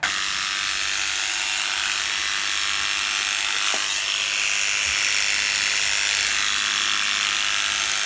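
A small electric grooming tool, such as dog clippers, running steadily: a continuous high hiss with a faint hum beneath, starting abruptly.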